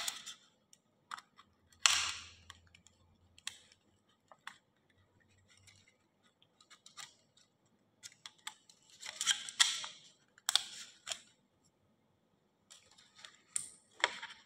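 Thin aluminum sheet cut from soda cans crinkling and rustling as it is handled and taped, in short crackly bursts with a few small clicks between, the loudest clusters about two seconds in and again toward the end.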